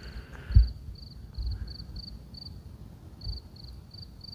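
A cricket chirping steadily, about three short pulsed chirps a second, with a brief pause past the middle. A single low thump comes about half a second in, over a faint low rumble.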